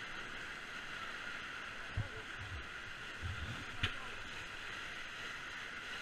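Whitewater rapids rushing steadily around a raft, with a few dull thumps about two to four seconds in.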